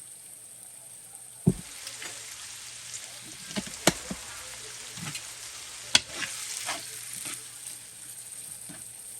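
Sardines cooking down in a pan with onion, peppers and tomato, sizzling steadily, while a utensil stirs them. The utensil knocks sharply against the pan several times; the loudest knocks come about a second and a half in and again around six seconds.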